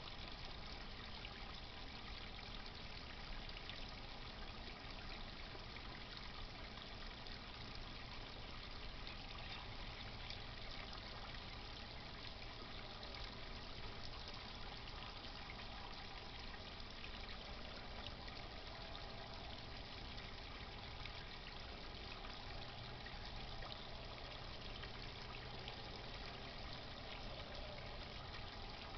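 Water from a pump-fed garden pond feature trickling and splashing steadily.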